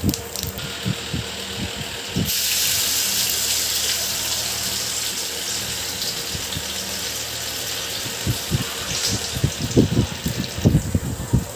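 Hot oil in an iron kadhai starting to sizzle hard about two seconds in as ingredients go into it, a loud hiss that slowly dies down. Soft knocks and taps of handling come near the end.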